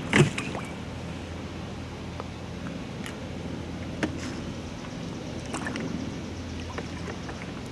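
Steady low hum and hiss of a small boat on the river, with a few faint clicks about three, four and five and a half seconds in.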